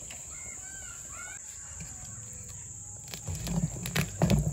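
A few short bird chirps over a steady drone of crickets. From about three seconds in, a spoon stirs thick dosa batter in a steel bowl, knocking and scraping about three times a second.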